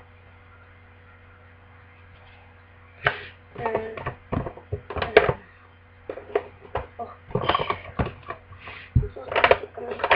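Plastic makeup cases and items clicking and clattering as a hand rummages through a box of cosmetics. It starts about three seconds in as many quick, irregular knocks, over a steady low electrical hum.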